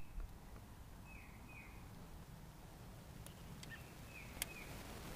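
Quiet background with a bird calling faintly: two pairs of short falling chirps, about a second in and again near four seconds. A few light clicks come between them, the sharpest a little after four seconds in.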